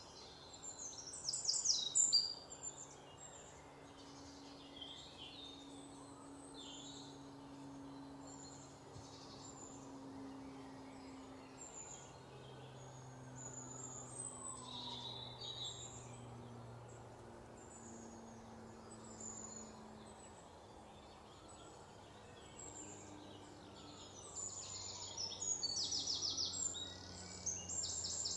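Wild birds chirping and calling in the forest, with bursts of quick repeated notes about a second in and again near the end, over a faint steady low hum.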